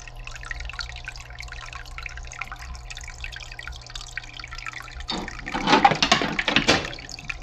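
Water dripping and trickling into an aquarium over a steady low hum, with fine ticks of drips throughout. The water gets louder and noisier for about a second and a half, starting about five seconds in.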